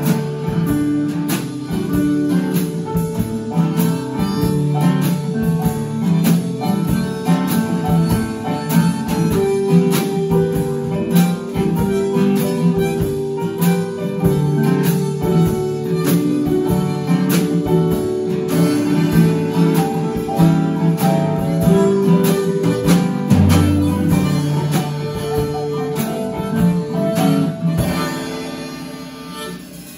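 Live band jam: strummed acoustic guitar, harmonica playing long held notes, a drum kit and a keyboard. The music winds down near the end.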